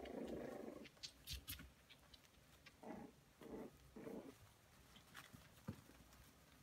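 Coton de Tulear puppies play-fighting, faint. A low growl stops about a second in, followed by light taps and scratches of paws and claws, three short growls a little before the middle, and a sharp click near the end.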